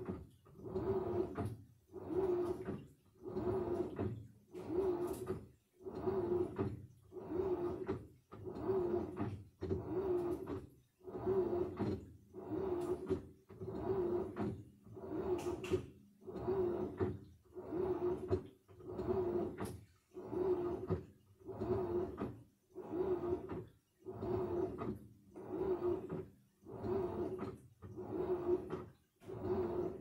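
Samsung washing machine in its wash cycle, the drum turning in short strokes about once a second. Each stroke carries a motor hum and the slosh of water through wet laundry.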